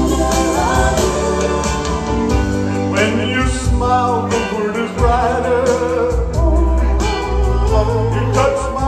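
Karaoke: a man singing into a microphone over a loud backing track with a steady beat and bass, played through the bar's PA speakers.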